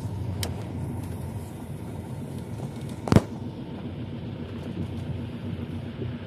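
Car's low engine and road rumble heard inside the cabin while driving slowly on a dirt track, with a single sharp knock about three seconds in.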